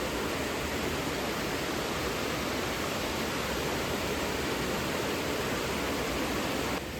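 Steady rushing of a waterfall, an even wash of falling water; the sound shifts abruptly near the end.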